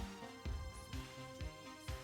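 Electronic music with a steady beat, low hits about twice a second under sustained pitched notes.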